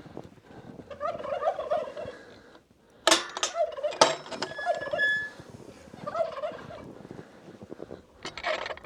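Turkeys gobbling in several bursts of rapid warbling calls, with a few sharp knocks about three and four seconds in and again near the end.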